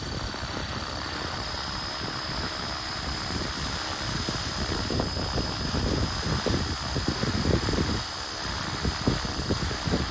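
Radio-controlled helicopter in flight: a steady high whine from the motor and rotor head that rises slightly in pitch, over the rush of the rotor blades. Irregular low buffeting on the microphone grows in the second half.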